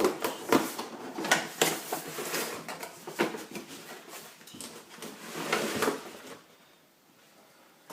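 Plastic knocks, clicks and rustling as a hard-shell airsoft fast helmet with built-in goggles is handled, dying away about six seconds in.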